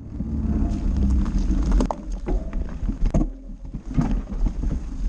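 Mountain bike ridden down a dirt trail: wind rumbling on the microphone over the bike's rattle, with several sharp knocks from rough ground, one of them the chainring striking the trail.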